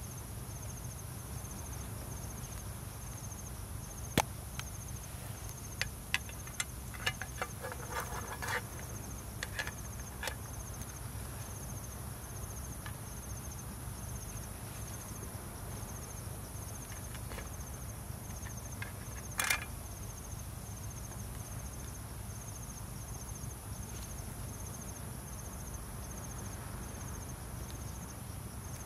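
Crickets and other night insects calling steadily: a continuous high trill with a regular, evenly pulsed chirp over it. Several sharp clicks and knocks cut in between about 4 and 10 seconds, with another near the two-thirds mark, the loudest about four seconds in; they fit utensils being handled.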